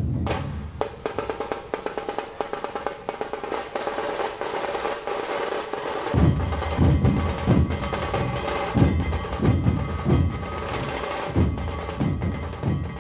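Background music led by percussion: a quick, even drum pattern, with heavier low drum beats coming in about halfway through.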